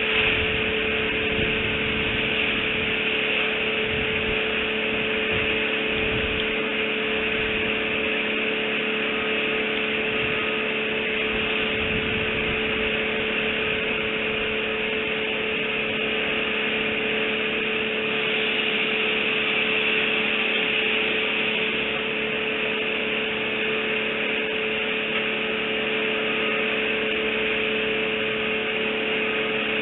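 A steady hum under a constant hiss, with some low rumbling in the first dozen seconds; no bird calls.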